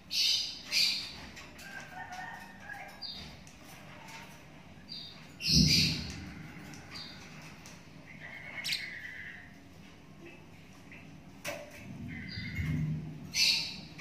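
A young lovebird chick giving short, high chirps and squawks every second or two, with one louder burst about halfway through.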